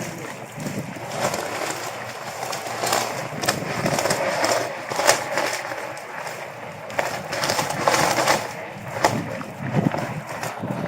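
Strong storm wind gusting and buffeting, rising and falling, with scattered sharp knocks and rattles.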